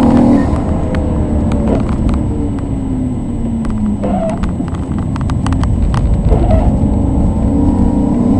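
Maserati 3200 GT's twin-turbo V8, tuned to 460 hp, heard from inside the cabin: the engine note falls off for a corner over the first few seconds, then rises again as the car accelerates out onto the straight. Scattered sharp ticks sound over the middle of the stretch.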